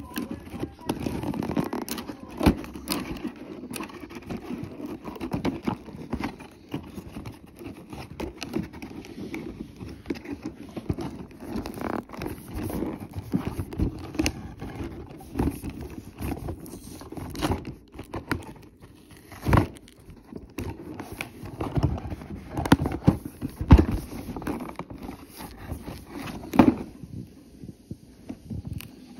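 Handling noise: irregular rustling, scraping and crackling of packaging and cloth, with scattered sharp knocks, the loudest a little past the middle and near the end.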